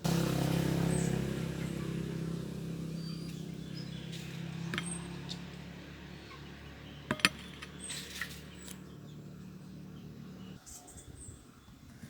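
A steady low droning hum that fades slowly and stops near the end, with birds chirping and a few sharp clicks.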